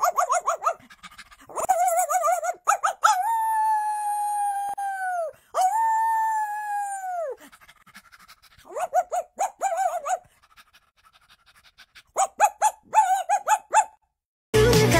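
A dog yipping in quick runs of short high notes, with two long howls in the middle that each hold their pitch and then drop away at the end.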